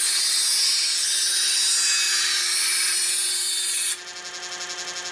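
Chef's Choice EdgeSelect 120 electric knife sharpener grinding a thick knife blade drawn through one of its slots: a loud, hissing rasp of steel on the abrasive wheels over the steady hum of the motor. The grinding stops about four seconds in, leaving the motor running on its own.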